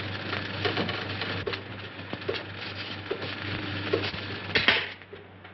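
Electric laundry ironer running with a steady hum and a soft knock repeating a little more than once a second, then switched off with a clunk near the end, after which it goes much quieter.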